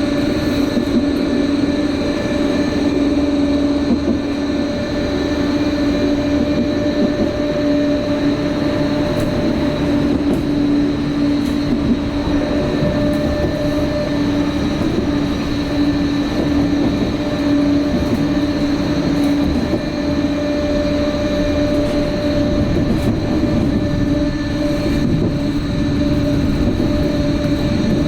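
Vossloh Tramlink light-rail vehicle running at steady speed, heard from on board: a steady rumble of wheels on rail with a constant electric drive hum and a faint high whine, and a few light clicks.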